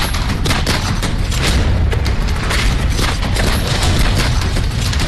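Dramatic news-report sound effects: a fast, unbroken run of gunfire-like shots and booms over a heavy low rumble, with background music underneath.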